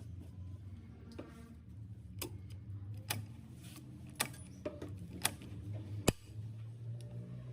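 Scattered sharp clicks and light taps at irregular intervals, the sharpest about six seconds in, over a low steady hum.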